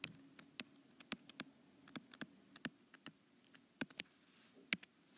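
Stylus tips ticking and tapping on an iPad's glass screen while a word is handwritten: a string of irregular faint clicks.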